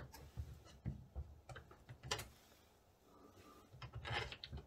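A few light clicks and knocks as a clear polycarbonate lens with its plastic hinge fittings is pushed into place in a Lewmar portlight frame, with a denser cluster of knocks near the end.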